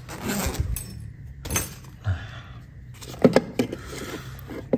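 Handling noise: rustling with a series of short clicks and light knocks, the sharpest pair about three seconds in, as hands open the battery bag on an electric bike's frame and push its cables aside.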